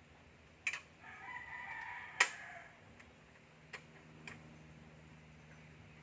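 A rooster crowing once, a single drawn-out call of about a second and a half. A few sharp clicks come before, during and after it, the loudest partway through the crow.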